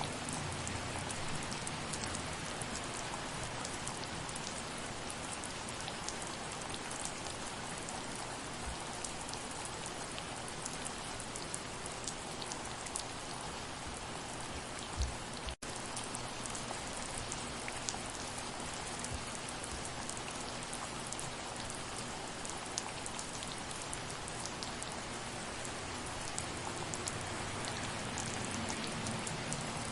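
Steady soft rain: an even hiss of rainfall with a dense patter of individual drops. About halfway through there is a brief dull thump and a split-second gap in the sound.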